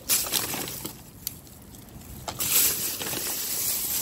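Thin plastic trash bag rustling and crinkling as a gloved hand rummages through it, with cardboard product boxes shifting and clicking against each other. A burst of rustling at the start, a quieter stretch with a couple of sharp clicks, then louder continuous rustling from about halfway.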